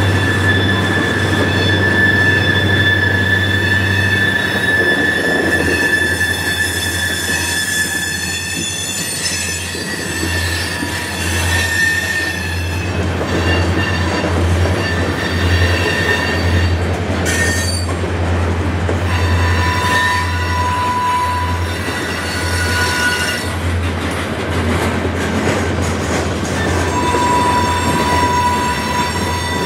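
A freight train's steel wheels squealing as the cars roll slowly through the switch into the yard: several high, steady squeals that come and go and change pitch, over a constant low hum.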